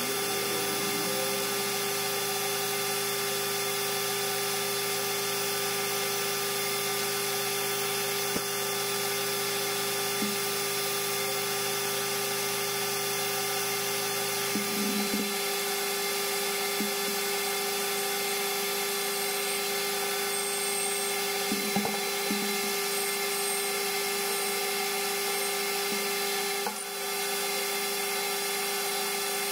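Metal lathe running steadily while a cutting tool turns down a small metal rod. The machine gives a constant hum and whine, with a few faint knocks along the way.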